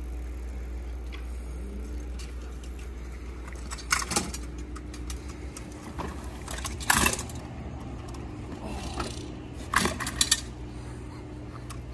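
A heavy rented Oslo city bike rattling as it rolls over the concrete ramps, with short loud clattering bursts about four, seven and ten seconds in as it hits the transitions and rides up the vertical wall. A steady low rumble lies underneath.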